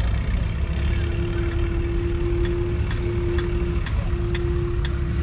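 A 1970 Massey Ferguson 135's 2.5-litre three-cylinder diesel engine running steadily. A steady whine comes in about a second in and breaks off twice, over light regular ticks at about two a second.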